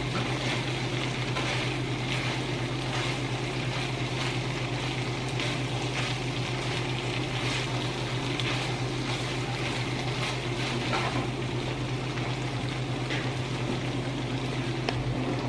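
Beef tapa sizzling steadily in its own rendered fat in a nonstick wok while it is stirred with a silicone spoon, being fried down until dry. A steady low hum runs underneath.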